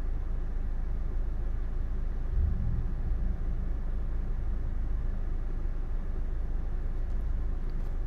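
Steady low background rumble, with a soft thump about two and a half seconds in.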